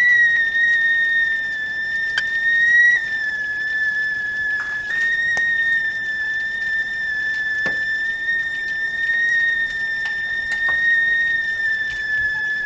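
Stovetop tea kettle whistling at the boil: one steady, high whistle that wavers slightly in pitch and drops a little about three seconds in.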